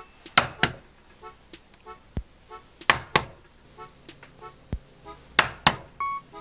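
Raw eggs being cracked for their yolks: three pairs of sharp taps about two and a half seconds apart, each egg knocked twice on a hard edge, over soft background music.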